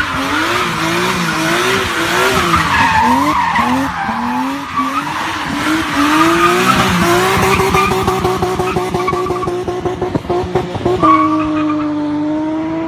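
BMW E36 M3 3.2's straight-six engine revving up and down while the car spins donuts, rear tyres screeching as they spin on the tarmac. After about seven seconds the revs hold higher and steadier, and near the end they hold at one pitch.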